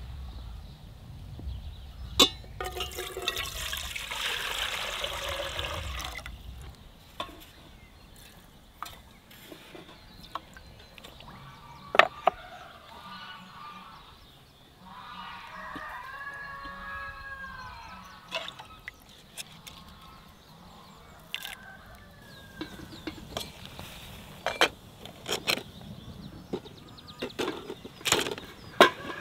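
Water poured into a metal pot for a few seconds near the start. Then scattered sharp clinks and knocks of a spoon against clay bowls and the pot as spices and salt are added, with a chicken calling in the background about halfway through.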